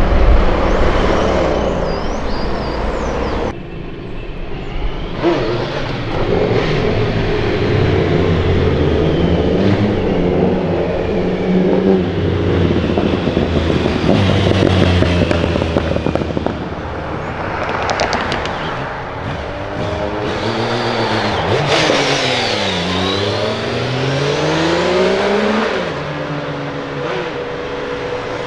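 Street traffic: cars and motorcycles driving past with engines accelerating and revving. About two-thirds of the way through, one engine's note dips sharply and climbs again.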